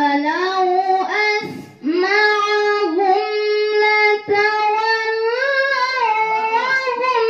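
A woman's voice in melodic Quran recitation (tilawah), sung into a microphone in long, high held notes that step and waver in pitch. There is a short breath about a second and a half in.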